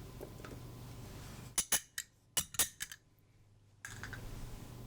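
Garlic cloves clicking into a Vitamix blender jar: about six sharp taps over roughly a second, starting about a second and a half in, over a low steady room hum.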